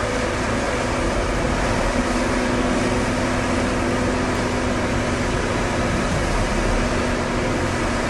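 Diesel engine of a Caterpillar 320C tracked excavator running steadily: a constant drone with a low, steady hum.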